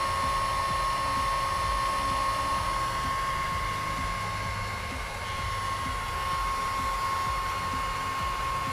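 Handheld electric heat gun running, its fan blowing with a steady whine, held on a vinyl decal to warm and soften it.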